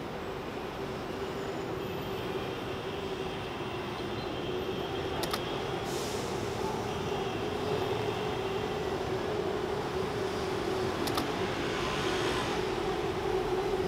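City traffic noise: a steady rumble of vehicles with a constant low hum, slowly growing louder, with a couple of faint clicks.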